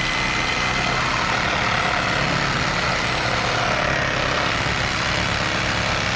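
An engine running steadily at an even pace, with a low hum and a hiss over it.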